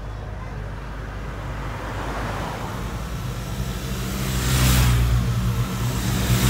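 Police motorcycles passing close by on the road, engines running steadily and swelling loud as each goes past, after a car has gone by more quietly. The two loudest pass-bys come about two seconds apart, the second right at the end.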